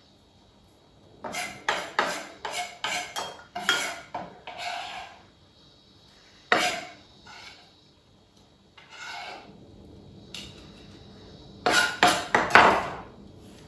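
Kitchen knife mincing parsley on a wooden cutting board: quick runs of sharp chopping strokes with pauses between, the busiest run near the end.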